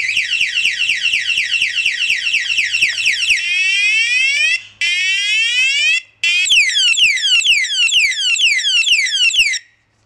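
Aftermarket motorcycle anti-theft alarm siren going off after the armed bike is touched. It cycles through its tones: falling sweeps about four a second, then faster chirps with two brief breaks, then slower falling sweeps, and it cuts off near the end.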